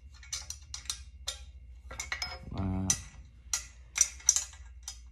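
Small metal pins and clips clicking and tapping against a Can-Am Ryker back-seat bracket as they are fitted by hand: a run of irregular sharp clicks, the two loudest about four seconds in.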